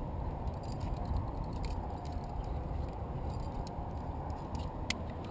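Wind buffeting the camera's microphone in a steady low rumble, with faint metallic clinks of carabiners and quickdraws on a climbing harness and one sharper click near the end.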